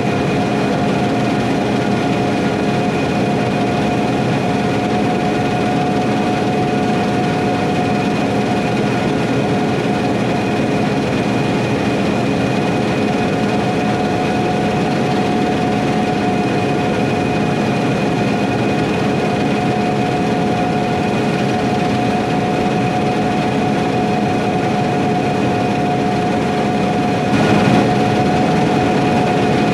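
Harvest machinery running steadily in the field: a heavy diesel drone with a constant whine held at one pitch, briefly louder near the end.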